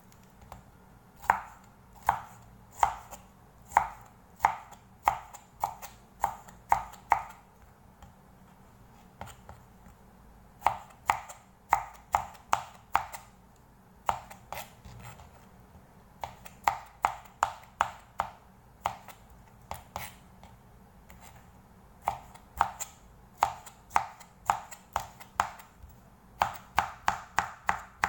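Chef's knife dicing tomato on a plastic cutting board: runs of sharp knocks as the blade strikes the board, about one to two a second, with short pauses between runs.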